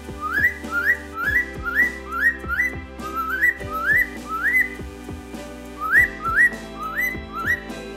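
Short upward-sliding whistles, about fourteen of them in quick runs with a pause in the middle, over background music with steady held notes.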